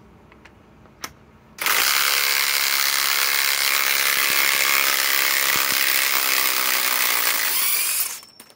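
RIDGID subcompact right angle impact wrench, 1/2-inch drive and cordless, hammering as it backs out a thick 4-inch lag screw. It starts about a second and a half in, runs loud and steady for about six seconds, then stops.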